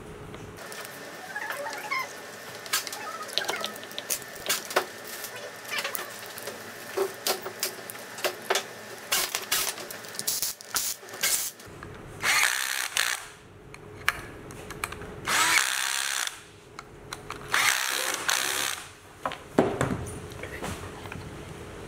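Cordless drill-driver turning the bolts of an electric skateboard's hub-motor rear truck, running in four short bursts of about a second each in the second half. Before the bursts come scattered small clicks and knocks of metal parts and tools being handled.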